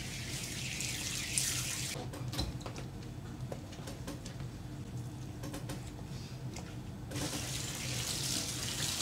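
Garden hose spraying water onto a wet teak deck and painted bulwark. The spray stops about two seconds in, leaving a few knocks and handling sounds, and starts again about seven seconds in. A steady low hum runs underneath.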